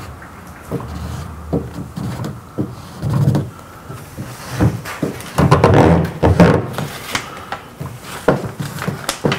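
Felt-edged squeegee rubbing and scraping over a wet vinyl stripe on a metal tailgate trim panel, in uneven strokes with light knocks, the heaviest strokes between about five and seven seconds in.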